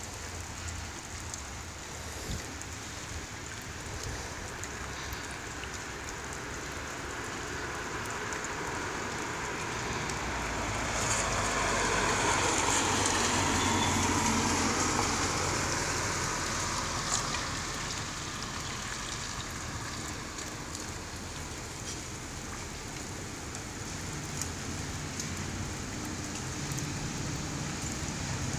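A car driving past on a wet road: its tyre hiss swells to the loudest point about halfway through and then fades, over a steady wet-weather hiss.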